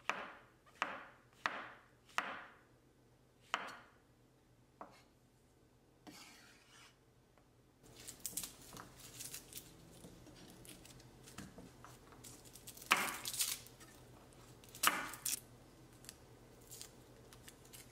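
A chef's knife slicing white button mushrooms on a wooden cutting board: six strokes in the first five seconds, each cut ending in a knock on the board. From about eight seconds in, fingers peel garlic cloves, the papery skins crackling and rustling, with two louder cracks.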